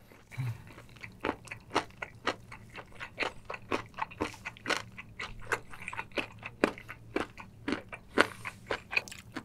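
Close-miked chewing of a mouthful of spicy braised chicken with kimchi: a steady run of wet crunches and mouth clicks, about three a second.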